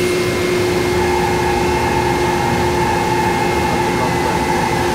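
DMG MORI NLX 2500 CNC lathe milling a titanium bar with a live-tooling spindle under flood coolant: a steady machine tone over constant coolant hiss, with a second, higher steady tone joining about a second in.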